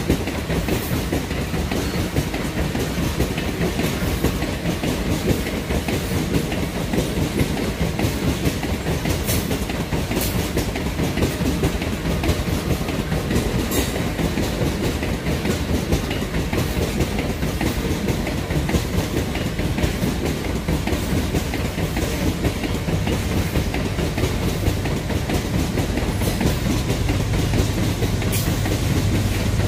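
Loaded ore wagons of a long freight train rolling past, their wheels clicking steadily over the rail joints. Near the end, the low drone of the pusher diesel locomotives at the rear of the train builds in.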